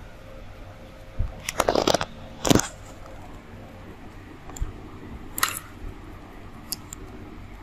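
Leafy branches rustling and crackling: a dense burst about a second and a half in, a sharper loud crackle a moment later, then a smaller rustle and a few faint clicks later on.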